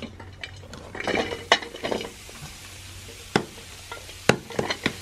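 Crumbled khoa being tipped and pushed around in a hot iron kadai with a metal spatula: a soft sizzle and scraping, then several sharp knocks of metal on the pan in the second half.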